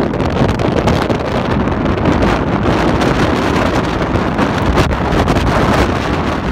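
Strong gusting wind buffeting the microphone: a loud, ragged rush of noise. Rough surf breaking on a shingle beach is mixed in beneath it.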